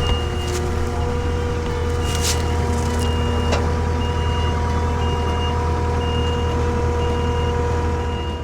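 Skid steer's engine running steadily while its reversing alarm beeps about once a second, with a couple of sharp metallic clanks.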